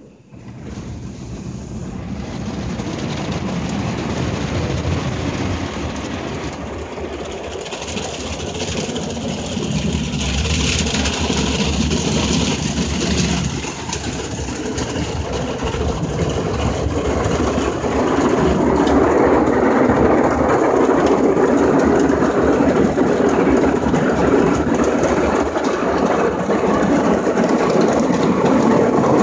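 Ryko Voyager II rollover car wash scrubbing the car with its spinning brushes and water spray, heard from inside the car: a loud, steady rumbling swish that starts abruptly and grows louder later on.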